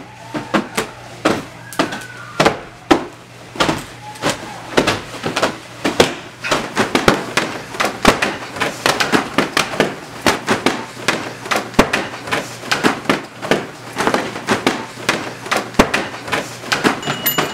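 Hands and fists beating pillows on a bed: a flurry of soft thumps and whacks, several a second, growing denser after the first few seconds.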